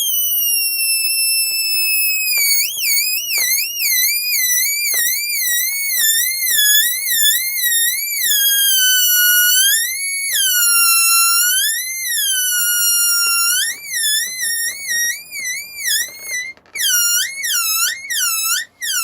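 Air escaping through the pinched, stretched neck of a rubber balloon as it is slowly deflated, making a loud, high-pitched squeal. The pitch wavers up and down and twice slides lower, and near the end the squeal breaks into quick separate squeaks.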